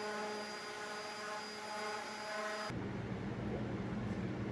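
Power drill motor running steadily with a whine while driving a screw into the wood. It cuts off abruptly a little over halfway through, leaving a low hum.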